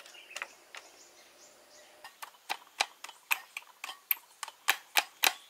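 Sharp, quick taps of a kitchen knife point being jabbed into a raw whole chicken and striking the woven bamboo tray beneath it. The taps are sparse at first, then come about three a second and grow louder from about two seconds in.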